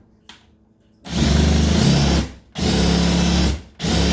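Power drill with a half-inch bit boring a hole into the wall where there is no stud. It starts after a second of quiet, then runs at a steady speed in three bursts of about a second each with brief pauses. The bit is not very sharp.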